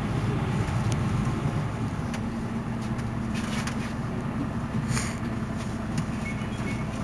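Mercedes-Benz Citaro C2 city bus running with a steady low engine hum; a steady drone sets in about two seconds in, with a few faint clicks and rattles.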